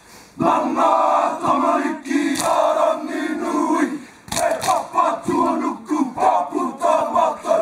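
A group of men chanting a haka in unison: loud shouted phrases with short breaks between them, and a brief pause about four seconds in.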